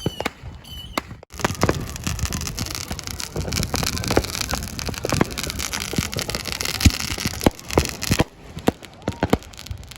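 Fireworks crackling in a dense, rapid stream of pops that starts about a second in and stops about eight seconds in, with separate sharp bangs around it.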